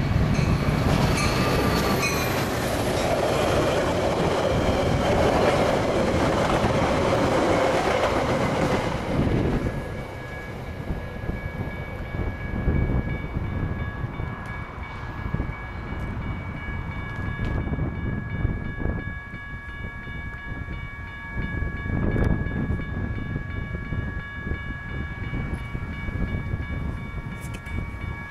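Metra commuter train passing close by at a grade crossing: a loud rush of locomotive and wheel noise for about the first nine seconds, which drops away sharply as the train clears. Quieter background follows, with a few steady high tones and occasional clicks.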